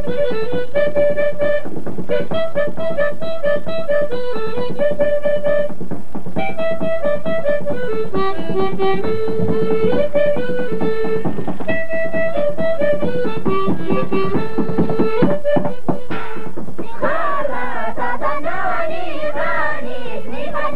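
Music: an instrumental melody moving in stepped notes over a steady accompaniment, with singing voices coming in near the end.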